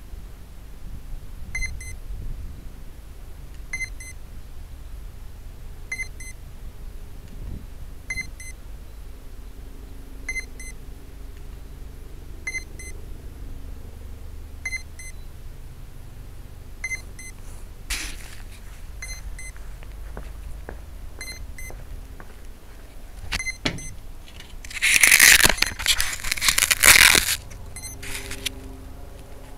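Short, high electronic beeps, in quick pairs repeating about every two seconds, from the idle tricopter's electronics, over a low rumble. Near the end, loud rustling and knocks of the craft and its keychain camera being picked up and handled.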